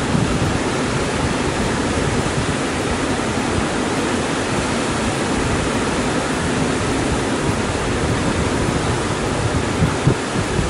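Mountain river rushing over boulders and rapids: a steady, even sound of white water.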